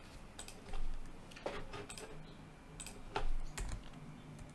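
Computer keyboard typing: irregular key clicks, singly and in short clusters, as code is typed.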